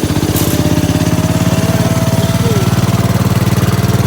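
Gravely 812 garden tractor's engine running steadily with an even, rapid pulse, just after starting.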